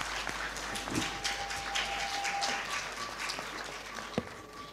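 Audience applauding in a standing ovation, many hands clapping, thinning out near the end.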